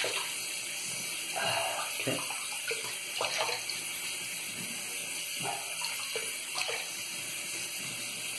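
Bathroom tap running into the sink, with repeated splashes of water as it is scooped up and splashed onto the face.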